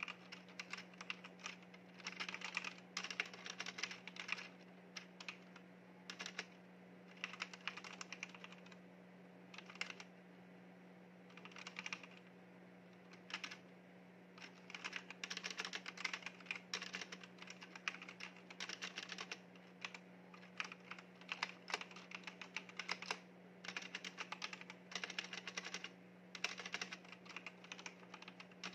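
Typing on a compact Leaven mechanical keyboard: fast runs of key clicks lasting a second or few, broken by short pauses, over a faint steady low hum.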